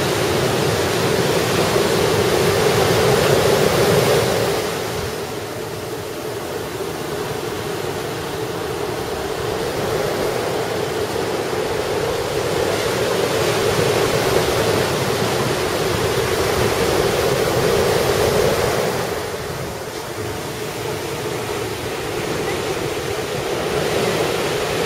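Ocean surf breaking and washing on the beach in a heavy typhoon swell: a continuous rush that swells and eases, dropping off twice, about five seconds in and about twenty seconds in.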